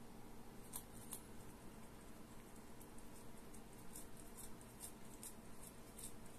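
A cat crunching potato crisps: faint, irregular crunches, roughly one or two a second.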